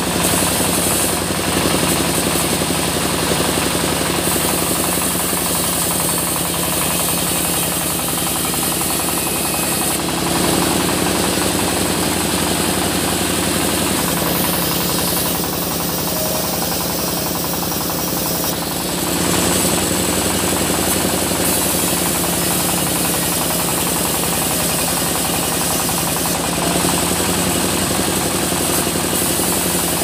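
Sawmill machinery running steadily, an engine-driven saw sawing small mahogany logs into boards. The din shifts in tone several times.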